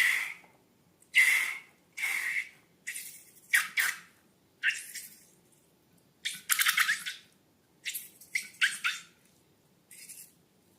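Slime being squished and worked by hand: about a dozen short, wet, crackly squishes at irregular intervals, with brief quiet gaps between.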